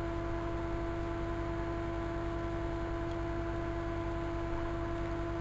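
Steady hum with one constant mid-pitched tone over a low buzz and faint hiss, unchanging throughout.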